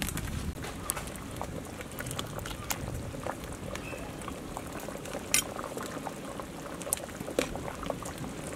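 Pot of chicken rice porridge boiling, with bubbles popping irregularly over a steady hiss and a few sharper pops.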